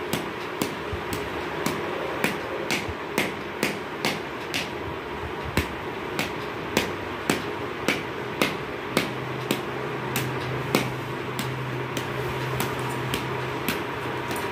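Sharp, regular ticking, about two ticks a second, over a steady whirring background noise; a low steady hum joins about nine seconds in and stops shortly before the end.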